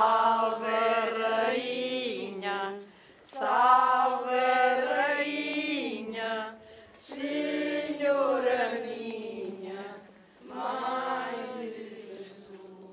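A group of mostly elderly voices singing a devotional hymn in unison, in about four long phrases with short breaks between them.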